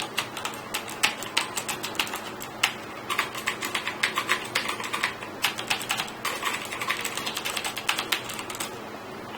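Clicky blue-switch mechanical keyboards being typed on together: the Nimxo K005 with its clone blue switches and the Cooler Master QuickFire TK with genuine Cherry MX Blue switches. The keystrokes are rapid and irregular, each with a sharp click, and they stop shortly before the end.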